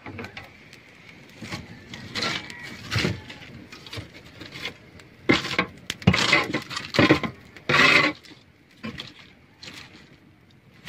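A burning bundle of dry broom sticks crackling and scraping as it is moved over a fiberglass boat hull, in irregular short noisy bursts.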